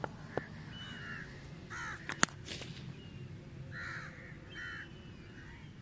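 Crows cawing, several calls spread across a few seconds, with a few sharp knocks; the loudest knock comes a little over two seconds in.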